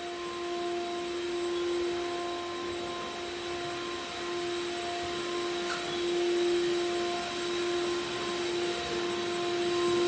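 Vacuum motor running steadily, a constant hum and whine at one unchanging pitch over a hiss of rushing air.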